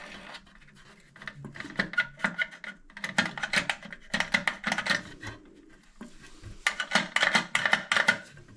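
Rapid clicking, rattling and scraping of plastic toilet cistern fittings being handled and fitted by hand, in two busy stretches with a short lull just past halfway.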